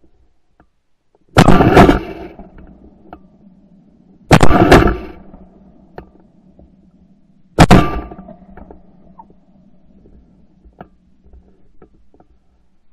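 Three shotgun shots at doves, about three seconds apart, each loud and sharp with a short trailing echo.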